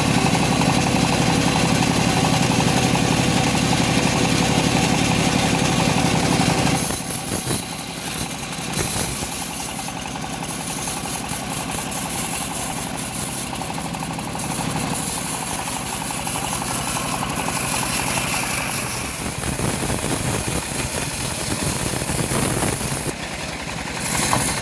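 Engine-driven homemade bandsaw mill running steadily. About seven seconds in, the low engine note drops back and a high hiss comes and goes for the rest of the time.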